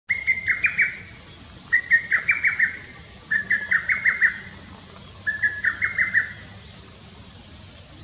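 Lesser cuckoo (Cuculus poliocephalus) singing its loud, stuttering song phrase four times, one every one and a half to two seconds. Each phrase starts on a short held note and breaks into a quick run of clipped notes.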